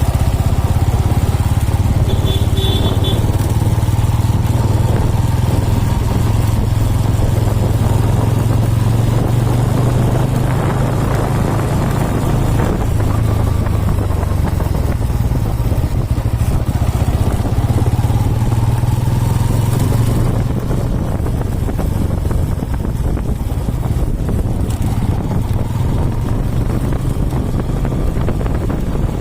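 Bajaj Pulsar N160's single-cylinder engine running as the motorcycle is ridden along, with wind and road noise on the microphone. The engine note eases off about two-thirds of the way through.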